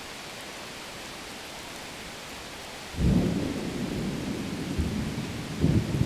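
A low rolling rumble of thunder breaks in suddenly about halfway through over a steady hiss, then swells again near the end.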